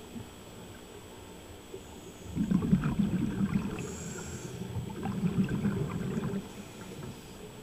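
Scuba diver breathing through a regulator underwater, with exhaled air bubbling out in two long bursts, one about two and a half seconds in and one about five seconds in, and a short hiss near the middle.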